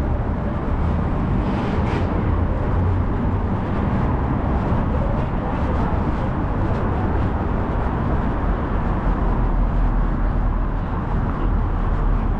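City street noise: a steady deep rumble of road traffic.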